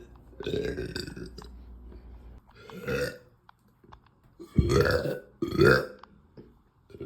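A woman burps deeply several times from a stomach overfull of carbonated soda. There is a long burp about half a second in and another near the middle, then two louder burps close together in the second half.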